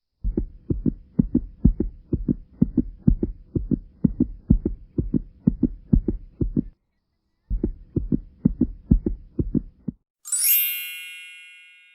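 Rapid, even low thumps, about four to five a second, pausing briefly near the middle. Then a bright shimmering chime rings out and slowly fades near the end.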